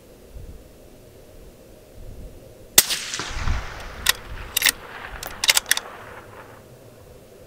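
A single shot from a Ruger American Gen II bolt-action rifle in .223 Remington about three seconds in, its report trailing off over a few seconds, followed by a quick run of sharp clicks.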